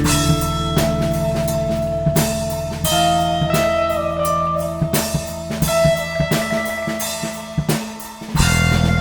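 Instrumental progressive rock: an electric guitar recorded direct through a SansAmp pedal holds long lead notes, one of them bent in pitch, over a Fender Jazz bass and a drum kit. The bass and low end cut out briefly near the end before the full band comes back in.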